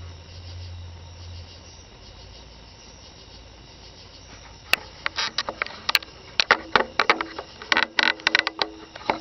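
Crickets chirping steadily at night, with a low hum that fades out about a second and a half in. From about halfway, a run of sharp, irregular clicks and knocks comes in over them, louder than the crickets.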